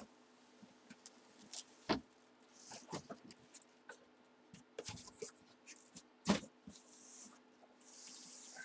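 Cardboard boxes being handled: a boxed helmet lifted and moved, with several sharp knocks and thumps of cardboard, then paper rustling near the end.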